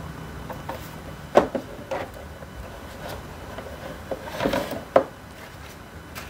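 Hands handling unboxing packaging on a desk: a few sharp knocks and clicks, with scuffing and rubbing as the boxed action camera in its plastic holder is lifted out of a cardboard box.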